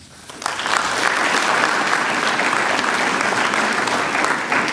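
Audience applauding. The clapping swells quickly just after the start, holds steady, and begins to die away near the end.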